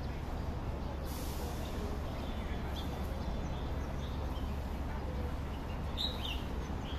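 Steady low rumble of outdoor urban background noise with a few brief high bird chirps, the clearest about six seconds in.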